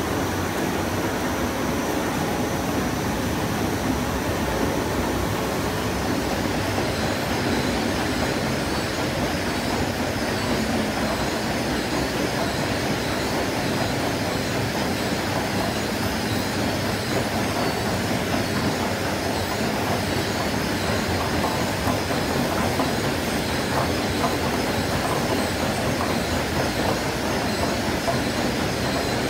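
Core-filled snack processing line running: conveyor belts and food machinery making a steady, even mechanical noise with no breaks.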